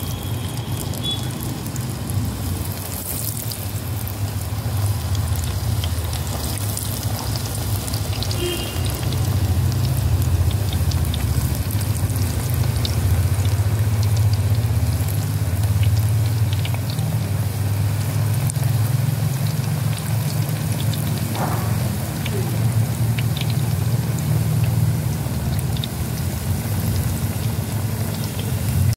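Cabbage pakoras in besan batter sizzling and crackling steadily as they deep-fry in hot oil in a clay pot. The sizzle grows louder a few seconds in. Underneath runs a steady low rumble.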